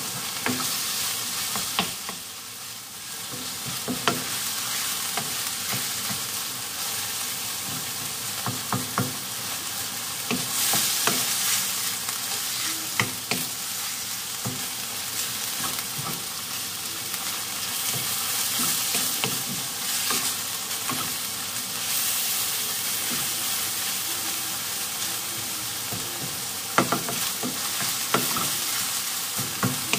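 Minced beef and onion sizzling as they fry in a non-stick pan, with a steady hiss. A wooden spoon stirs them, scraping and knocking against the pan now and then.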